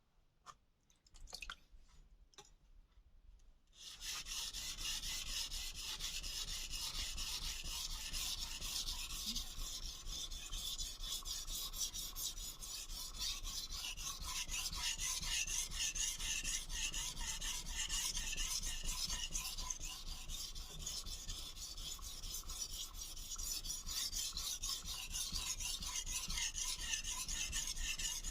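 Kai Shun kitchen knife's steel blade being stroked rapidly back and forth on a Solicut 1000/3000 combination whetstone: a steady rasping scrape that starts about four seconds in, after a few light clicks.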